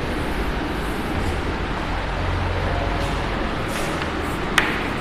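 Steady background rumble and hiss with a low hum, and one sharp click about four and a half seconds in.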